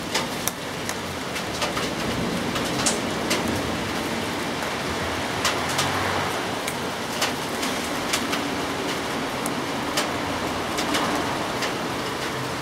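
Steady rain falling, a constant hiss with frequent sharp, irregular ticks of drops striking a nearby surface.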